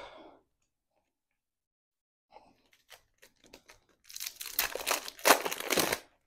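A trading-card pack's wrapper being torn open and crinkled by hand, loudest just after the middle of the tear, after a few light clicks.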